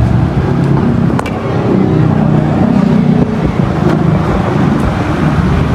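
Steady roadside traffic noise with vehicle engines running, and a few faint clicks.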